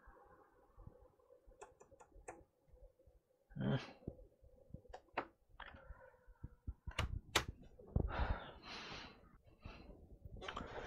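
Laptop being handled and shut on a workbench: scattered sharp clicks, a dull thunk about four seconds in, and short rustling, scraping sounds near the end as the lid is folded down and closed.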